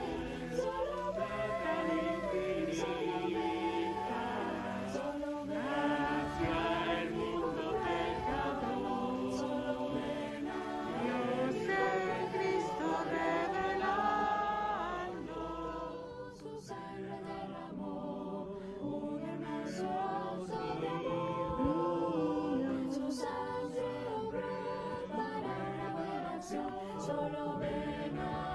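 Background music: a choir singing a hymn, with a brief dip in loudness about sixteen seconds in.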